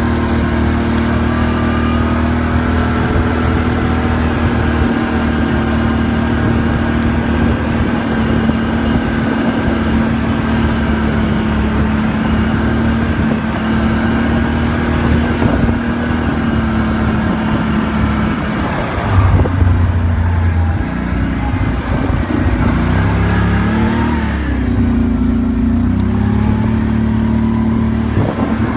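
ATV engine running steadily at speed under way. About two-thirds through it surges louder, then its pitch drops and climbs again as the machine slows and accelerates.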